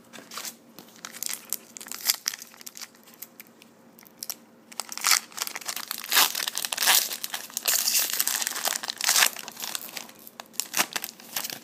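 Crinkling of a trading-card pack's foil wrapper as it is pulled from the box and torn open. Sparse crackles at first, growing dense and busy about halfway through.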